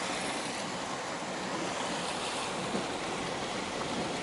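Steady rushing of water from hurricane rain and flash flooding, an even, unbroken hiss with no distinct splashes.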